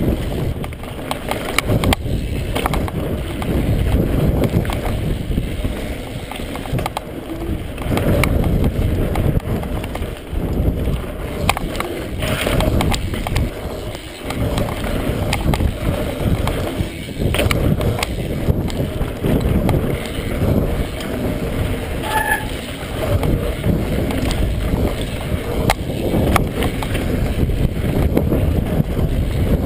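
Mountain bike riding fast down a dirt singletrack: a steady low rumble from the tyres on dirt and rock, with frequent rattles and knocks from the bike jolting over bumps, heard from a camera riding on the bike or rider.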